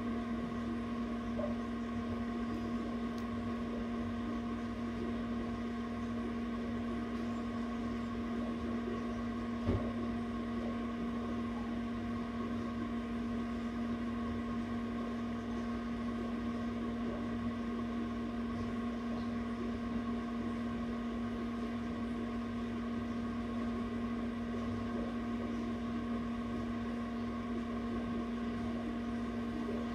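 Egg incubator's fan running with a steady, even hum, with one faint click about ten seconds in.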